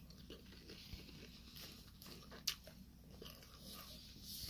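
Faint chewing of a bite of baked samsa, a flaky meat-filled pastry, with one sharp click about two and a half seconds in.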